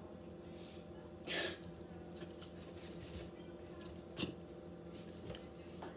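Quiet room tone with a faint steady hum. It is broken by a short breathy rush about a second and a half in and a light click about four seconds in.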